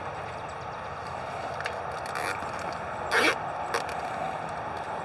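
Plastic poultry shrink bag crinkling and rustling as its neck is twisted and fastened with a zip tie, a few brief sharp rustles, the loudest about three seconds in, over a steady background rumble.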